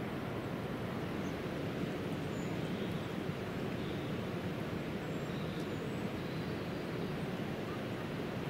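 Steady low rumbling background noise that holds level throughout, with a few faint, high bird chirps scattered over it.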